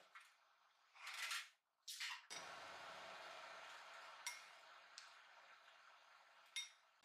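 Faint clinks and scrapes of a metal spoon against a glass mixing bowl as fried shrimp are stirred through a thick mayonnaise sauce, with a few sharp clinks near the end.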